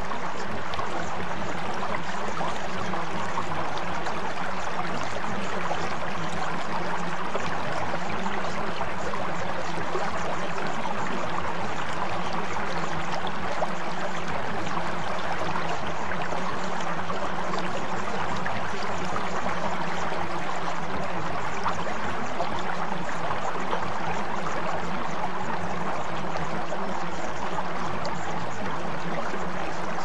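Steady running-water ambience like a flowing stream, even and unbroken, with low steady tones humming underneath.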